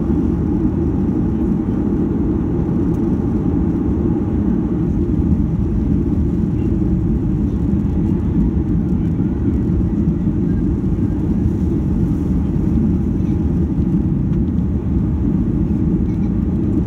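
Steady, deep cabin noise of a Boeing 737-800 in flight: its CFM56-7B jet engines and the rushing air, heard from inside the passenger cabin.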